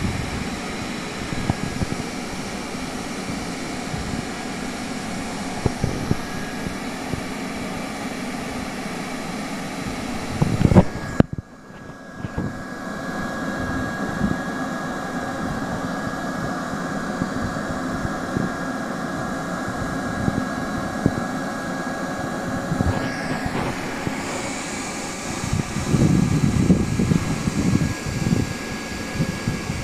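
Hand-held hot-air plastic welding gun running steadily with a steady high whine while it welds a vinyl flooring seam through a speed-weld nozzle. About a third of the way in there is a brief louder clatter and a sudden dip, and near the end a rougher low rumble.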